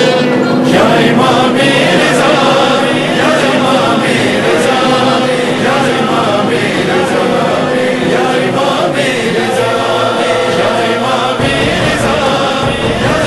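Naubat ceremonial music from the Imam Reza shrine's drum house, with chanting voices over steady, long-held horn notes.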